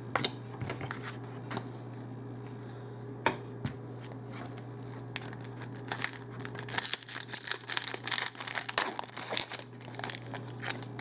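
Foil booster pack wrapper being torn open and crinkled. The rustling is densest a few seconds after the start, after scattered light clicks of cards being handled, with a steady low hum underneath.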